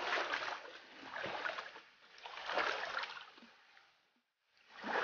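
Footsteps wading through a shallow creek, the water splashing in swells about a second apart, fading out near the end.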